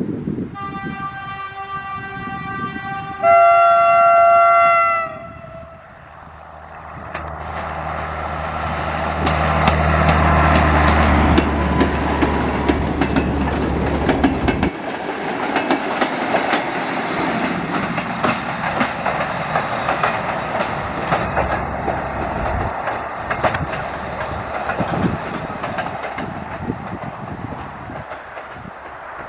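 A yellow track-maintenance draisine hauling rail-carrying flat wagons sounds its horn twice, the second blast louder, then its engine rumbles past with wheels clicking over the rail joints. The engine drops away as it passes, and the wheel clatter slowly fades.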